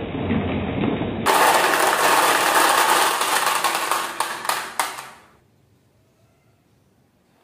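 Many glass marbles rolling down grooved wooden tracks and clattering into a plastic toy truck bed: a dense, loud rattle that grows fuller about a second in, thins to a few last clicks, and stops about five seconds in.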